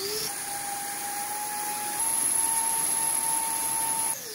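Electric ducted fan with a six-blade Gemfan rotor running on a thrust test stand: a steady high whine that steps up in pitch about two seconds in as the throttle goes to maximum, then winds down near the end.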